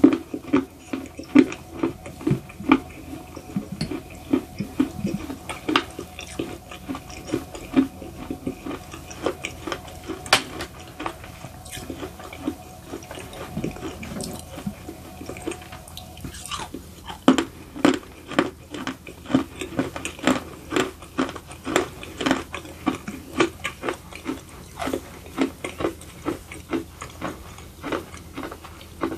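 Close-up crunching and chewing of baked edible clay (barro): many sharp, dry crunches in quick succession, thinning out for a few seconds a little under halfway through before picking up again.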